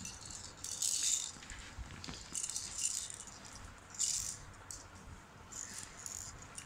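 Plastic baby rattle shaken in several short bursts, the small beads inside rattling.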